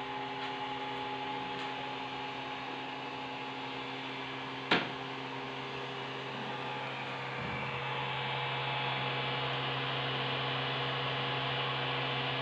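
3D printer's fans and power supply running with a steady hum and hiss while the nozzle heats up, the hiss growing a little louder about eight seconds in. One sharp click about five seconds in.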